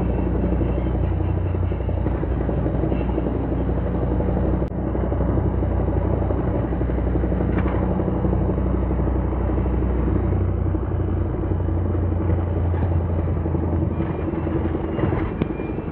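Early Suzuki Cappuccino's three-cylinder turbo engine and drivetrain running on the move, a steady low drone with a few held tones that drift slightly in pitch. This is the drivetrain noise the owner is recording as abnormal.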